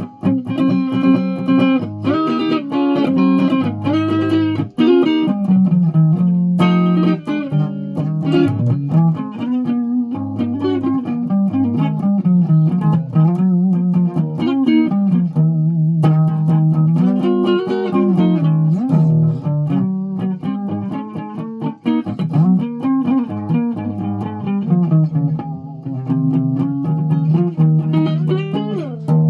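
A guitar played note by note as a slow, halting melody, with some notes sliding in pitch.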